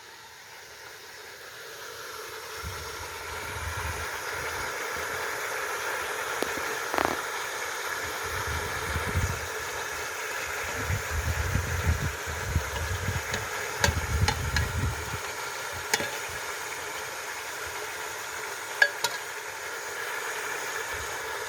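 Food frying in a pan: a steady sizzle that swells over the first few seconds. A few sharp clicks and knocks and some low rumbling come in the middle.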